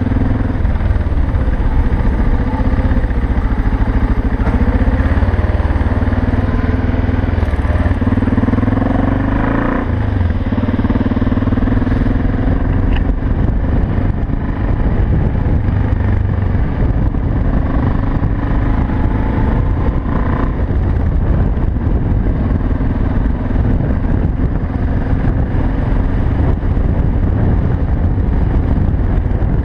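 BMW F650GS single-cylinder engine running steadily under way, its note rising and falling several times with the throttle.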